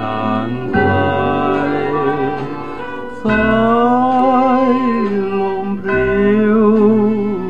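A mono vinyl record playing a Thai song: a singer holding long notes with wide vibrato over instrumental backing, with the bass changing note every few seconds.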